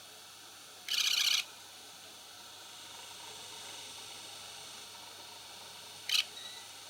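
Yamazen YLT-AK301 electric fan motor running with its guard and blades removed, giving a steady hiss. Two brief high-pitched noises break in, a half-second one about a second in and a shorter one near the end: the abnormal noise this new fan makes.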